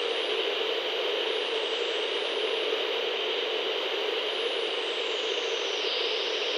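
Radio static: a steady hiss with a faint high whistle slowly sliding up and down, as when a CB radio is tuned between stations.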